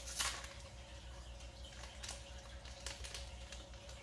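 Faint rustling and small clicks of hands handling a foil Dragon Ball Super Card Game booster pack and trading cards.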